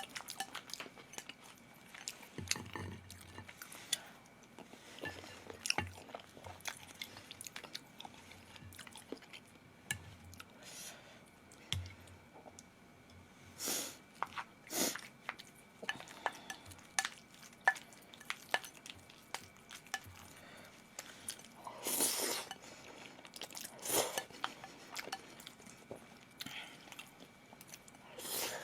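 Close-miked chewing and eating, with many short clicks of utensils against dishes and a few longer, louder noisy sounds.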